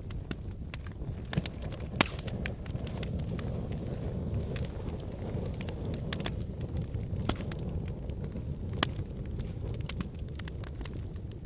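Wood fire burning in a fireplace: a steady low rumble of flames with irregular sharp crackles and pops, the loudest about two seconds in and again near nine seconds.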